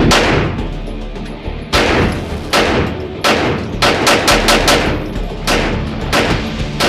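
Handgun shots fired in an irregular string, about a dozen, some in quick succession near the middle, each with a short echo, over a background music bed.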